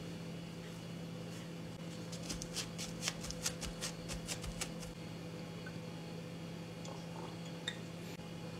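Paper towel crinkling and patting against a raw steak as it is blotted dry, a quick run of crisp crackles for two or three seconds in the middle. A steady low hum runs underneath.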